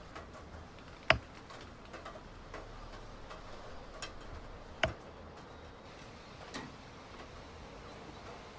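A few irregular sharp knocks and light taps, like hard objects being handled and set down. The loudest comes about a second in and a second strong one near five seconds.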